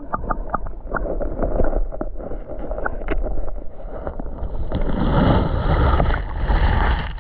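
River water splashing and gurgling around a raft, with wind rumbling on the microphone. A few small knocks come near the start, and the rushing grows louder about five seconds in.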